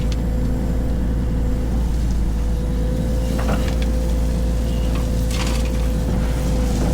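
Heavy diesel machinery running steadily with a low rumble and a constant hum, with a few short knocks or clanks.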